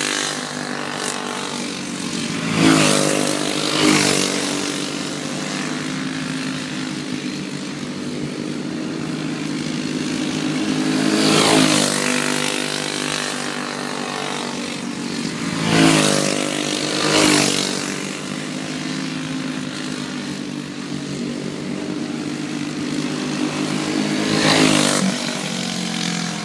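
Racing go-kart engines running at speed around a small oval, a steady engine drone with karts passing close by about six times, twice in quick pairs, each pass swelling loudly and then falling away.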